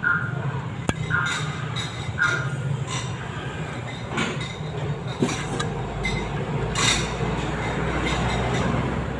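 Metal hand tools clinking and knocking against car suspension parts, a string of sharp metallic clinks about a second apart over a steady low hum.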